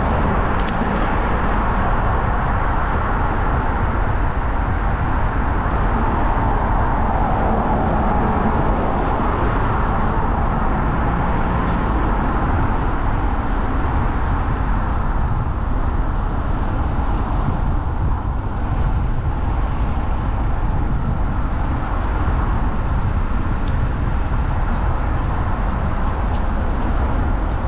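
Steady road traffic: cars, vans and buses driving past on a busy city road.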